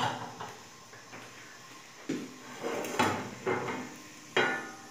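Clanks and knocks of a nonstick frying pan being shifted and tilted on a gas stove's metal grate, four sharp hits in the second half, the loudest near the end.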